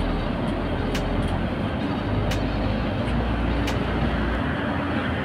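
Steady engine and road noise inside an intercity coach cruising at about 90 km/h, with a low rumble and a faint tick about every second and a half.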